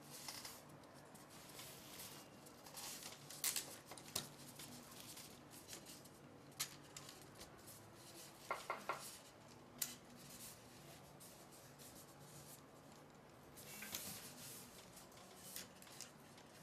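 Faint clicks and light scraping of a long metal screw and black plastic tube clamps being handled and threaded through the side plates of a camera gimbal frame, with a quick cluster of clicks about halfway through.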